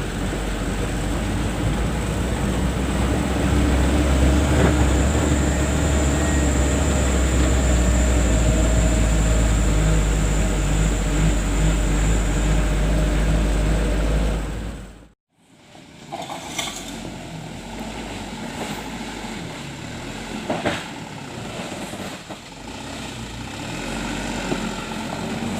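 A vehicle runs on the move with a loud, steady low rumble of engine and road noise. It cuts off abruptly about fifteen seconds in, and after that comes quieter running noise with scattered knocks and rattles.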